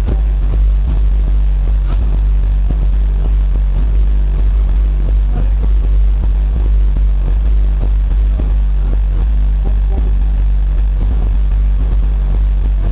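Two competing car audio systems' subwoofers holding a steady, very deep bass tone at full power in a head-to-head SPL bass race, measured at about 139 dB.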